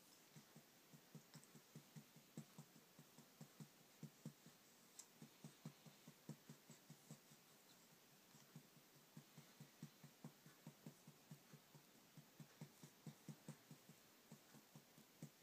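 Faint, soft pats on a baby's back at about three a second, steady and even: patting to bring up a burp.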